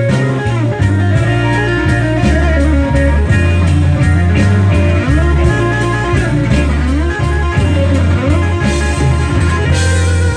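Instrumental break of a slow blues: a guitar solo with notes bending up and down over a steady bass line and drums.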